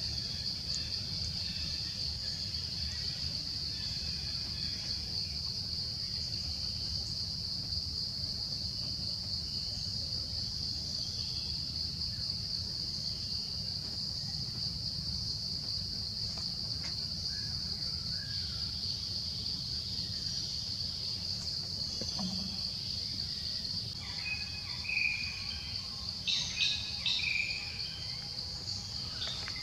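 Steady high-pitched insect chorus buzzing without a break over a low rumble, with a few short chirps near the end.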